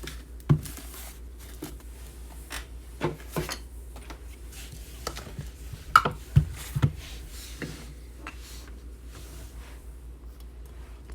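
Irregular knocks, taps and clicks of objects being handled on a tabletop, with a cluster of sharper knocks about six seconds in, over a steady low hum.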